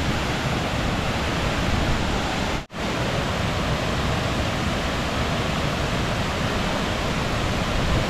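Steady rushing of the Kuang Si Falls cascades, with the sound cutting out for an instant just under three seconds in.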